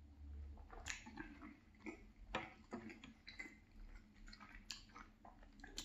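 Close-miked eating sounds: a person swallowing chocolate milk and chewing moist marble cake, heard as faint, irregular wet clicks and smacks of the mouth. One sharper knock comes about two and a half seconds in.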